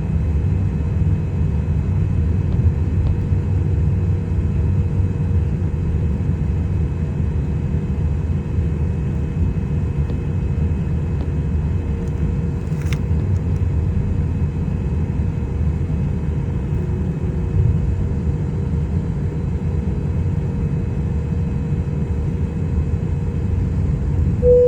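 Boeing 777 airliner rumbling steadily while on the ground, with a faint constant whine over the low rumble and one short click about halfway through.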